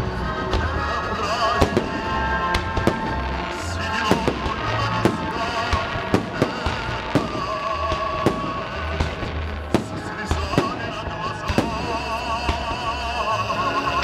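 Fireworks salute: aerial shells bursting with sharp bangs about once a second, at irregular intervals, over festive music with wavering held notes.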